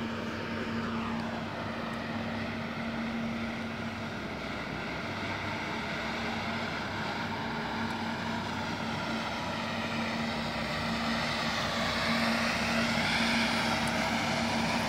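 Nilfisk walk-behind floor scrubber-dryer running as it scrubs a concrete floor: a steady motor hum and whine. It grows louder over the last few seconds as the machine comes closer.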